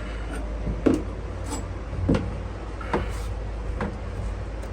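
About five sharp knocks and cracks, spaced irregularly, from tearing rotten interior paneling out of a sailboat cabin, over a steady low hum.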